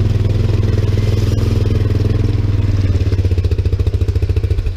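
ATV engine running steadily under throttle, carrying riders. About three seconds in it eases off into slower, separate pulsing beats, then drops away near the end as the machine stops.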